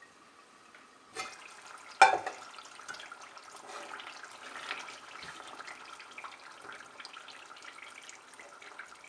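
A light knock and then a loud metal clank of the steel pot lid about two seconds in, followed by mustard mutton curry bubbling and sizzling steadily in the pan with a patter of small pops.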